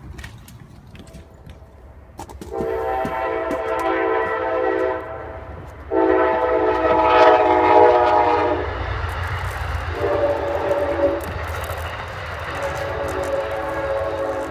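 Train horn sounding the grade-crossing signal, long, long, short, long, over the low rumble of a passing train.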